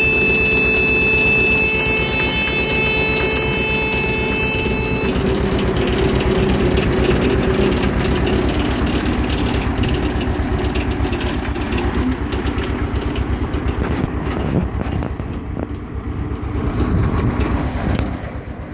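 Tractor engine running steadily and driving a PTO-powered chain round baler, with an even low pulsing throughout. A set of steady high whining tones stops abruptly about five seconds in, and the sound dips in level a few seconds before the end.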